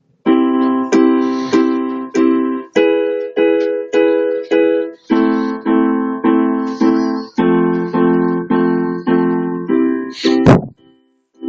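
Instrumental backing-track intro to the song: repeated keyboard chords struck in a steady rhythm, about two a second, with the chords changing every couple of seconds. A brief loud sweeping sound comes about ten seconds in.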